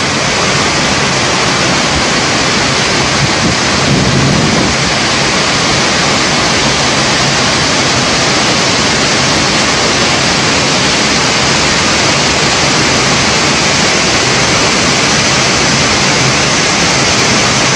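Floodwater rushing out through the two raised spillway crest gates of the Srisailam dam, a loud, steady roar of falling water. The reservoir is at full level, and the gates are releasing about 28,000 cusecs each.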